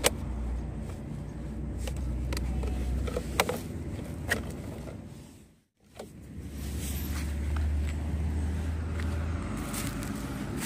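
A steady low rumble with a few sharp clicks and knocks from a hand-held camera being moved about. The sound cuts out to silence for a moment a little past halfway, then the rumble comes back.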